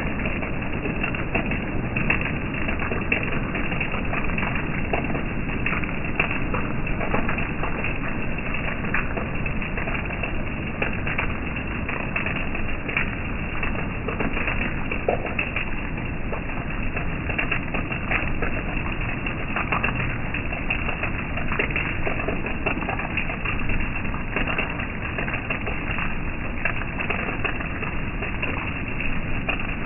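Steady rain falling, with many small sharp drop impacts and drips over an even hiss.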